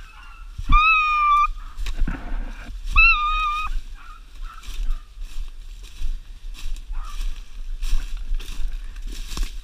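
Hunting dogs baying on a rabbit chase: two drawn-out, steady-pitched bays, one about a second in and one a few seconds later, over leaves and brush crunching underfoot.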